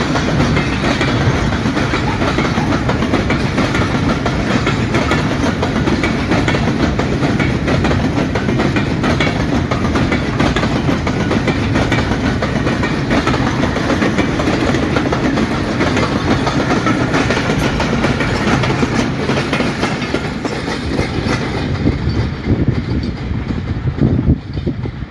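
Container freight train wagons rolling past close by, a steady loud noise of steel wheels running on the rails. It fades and dulls over the last few seconds as the end of the train draws away.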